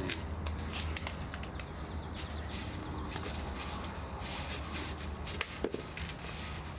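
Scattered light clicks, taps and knocks of plastic seedling containers being handled and set down, over a steady low hum.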